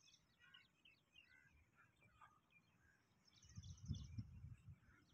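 Near silence with faint, scattered bird chirps and two short high trills, and a brief low rumble about three and a half seconds in.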